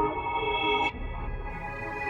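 Background music: ambient electronic synth chords, held steady, that drop in level and change about a second in.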